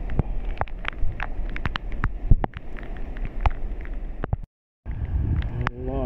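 Heavy rain in gusty wind: wind rumbling on the phone's microphone, with raindrops hitting close by as many sharp, irregular ticks. The sound cuts out briefly about four and a half seconds in.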